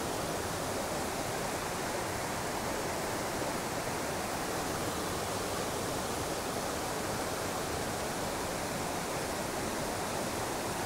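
A small mountain trout stream rushing over rocks: a steady, even wash of water.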